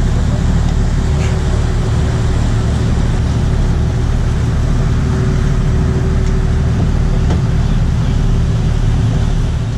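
Charter fishing boat's engines running steadily under way: a loud low drone with a constant hum and a rush of wind and water over it, easing slightly near the end.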